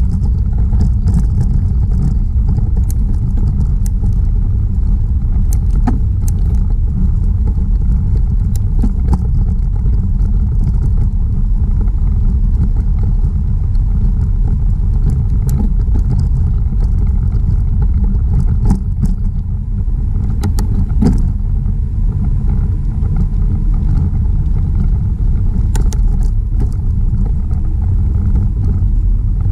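Wind buffeting the microphone of a camera on a moving bicycle: a loud, steady low rumble mixed with tyre noise on the trail surface. Scattered sharp clicks and rattles from the bike and mount over bumps.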